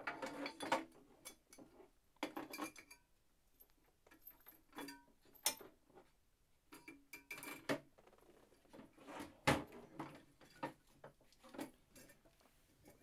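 Small hard objects clinking and clattering as they are handled and set down on a workbench: a series of scattered light clicks and knocks, with a sharper knock about two-thirds of the way through.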